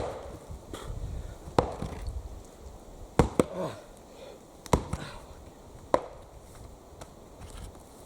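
Axe chopping wood: about six sharp blows roughly every second and a half, some with a short ringing clatter after them, tapering off near the end.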